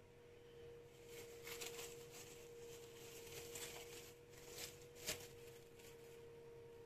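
Plastic cling film crackling as it is peeled off a glass bowl of risen dough, with a sharper crinkle about five seconds in. A faint steady tone hums underneath.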